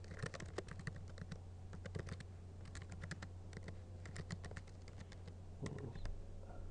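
Typing on a computer keyboard: irregular keystroke clicks, over a steady low hum.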